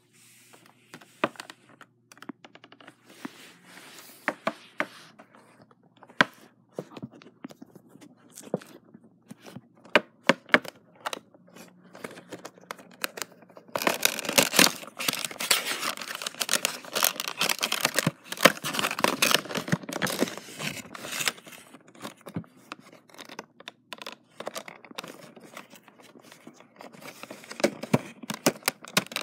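A Funko figure's cardboard box and plastic packaging being opened by hand: scattered taps and clicks of handling at first, then, about halfway through, a long stretch of tearing and crinkling that eases off and picks up again near the end.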